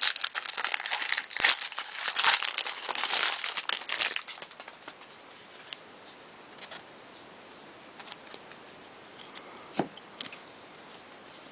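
Plastic wrappers of baseball card packs crinkling and tearing as the packs are ripped open, for about the first four seconds. After that only a few faint ticks and one sharper tap as cards are handled.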